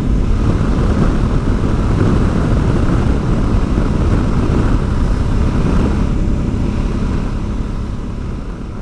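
A motorcycle on the move: steady wind rush over the microphone mixed with engine and road noise, fading away over the last two seconds or so.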